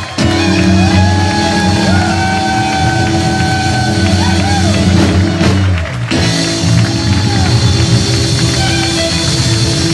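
Live rock band playing: fiddle, acoustic guitar, bass guitar and drum kit together. There is a brief break about six seconds in before the band carries on.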